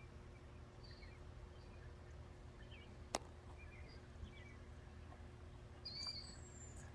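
Faint outdoor ambience: scattered short bird chirps over a steady low hum, with one sharp click about three seconds in and a brighter whistled chirp near the end.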